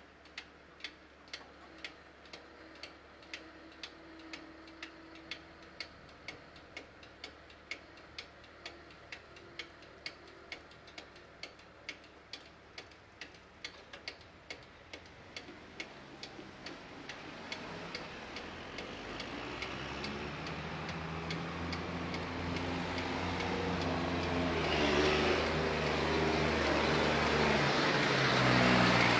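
Level-crossing warning bell striking about twice a second while the barriers go up, stopping about halfway through. Then a diesel engine approaches and grows louder, loudest near the end: a tractor and road traffic moving off across the reopened crossing.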